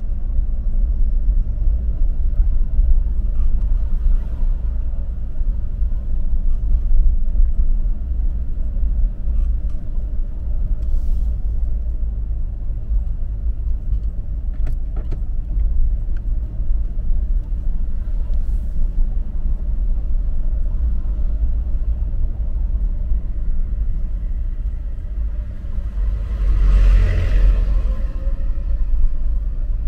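Steady low rumble of a vehicle driving along a road, engine and road noise with no speech. It swells louder for a couple of seconds near the end.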